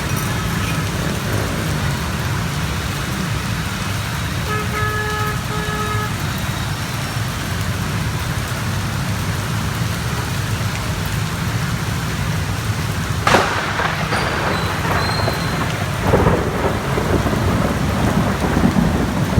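Heavy rain pouring steadily on a city street. A horn sounds twice about five seconds in. About thirteen seconds in comes a sharp crack of thunder, followed a few seconds later by rolling rumbles of thunder.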